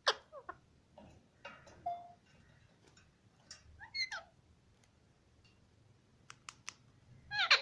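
Pet parrots giving short chirps and squawks with quick rising and falling pitch, at irregular intervals. There are a few sharp clicks a little after the middle, and the loudest burst of calls comes near the end.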